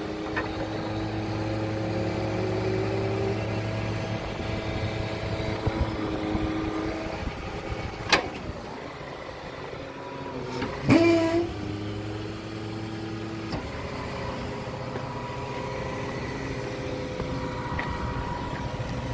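Wrecker's engine running with the PTO engaged, its hydraulic pump droning under load as the wheel-lift is lowered with the control levers. The load drone holds for about the first seven seconds and stops. A sharp click comes near eight seconds in. About eleven seconds in there is a clunk and the drone comes back, briefly rising in pitch, then cuts off about two and a half seconds later.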